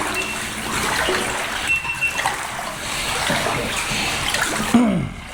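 Water splashing and sloshing steadily in a flooded drain tunnel.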